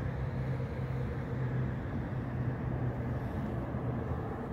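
A vehicle running: a steady low engine hum with an even rushing noise over it.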